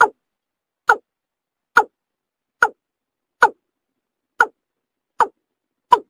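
Watercock (kora) calling: a steady series of short, downward-sliding notes, about eight in all, a little under one a second.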